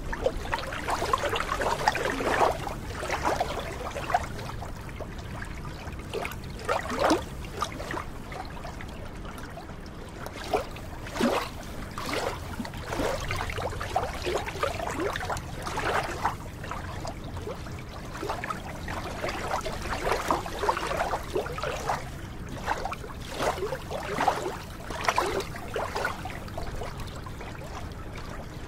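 Small waves of a glacier lagoon lapping at the water's edge, in irregular slaps and gurgles, over a steady low rumble.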